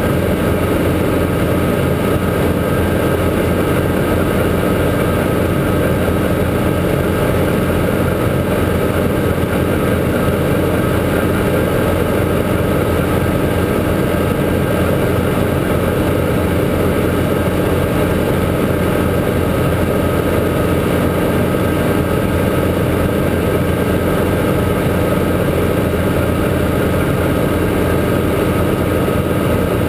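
Guimbal Cabri G2 helicopter's four-cylinder Lycoming piston engine and rotor running at a steady drone, unchanging throughout, as in level flight.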